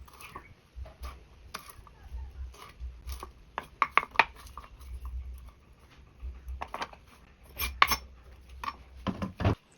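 A knife cutting raw chicken on a cutting board: irregular knocks and clicks of the blade on the board, some in quick clusters, with brief scraping between them.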